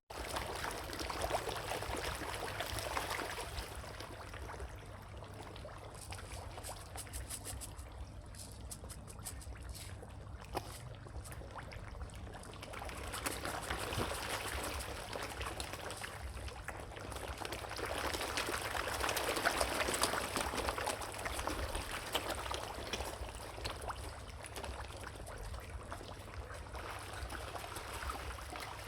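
Moving water, splashing and trickling, swelling and fading in surges every several seconds over a steady low hum.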